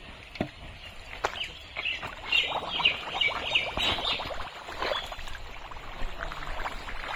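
Wet mud and water splashing and sloshing as a basin is scooped full of pond mud and carried through the mud, with two sharp knocks in the first second and a half and a busy run of splashes in the middle.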